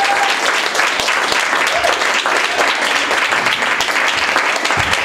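Audience applauding, with short whoops of cheering in the clapping.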